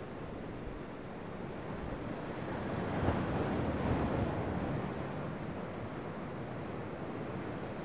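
Ocean surf washing over a rocky shore: a steady rush of water that builds into a louder breaking wave about three seconds in, then eases back about two seconds later.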